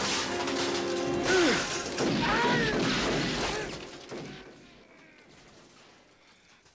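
Action-film soundtrack playing on a television: crashes and clatter over music. It dies away about four seconds in.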